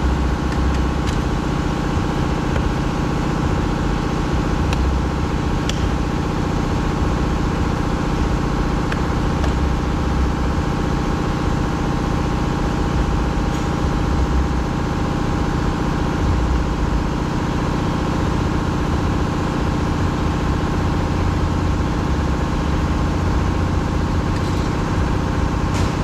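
Steady mechanical drone with several held tones, unchanging throughout, with a few faint clicks.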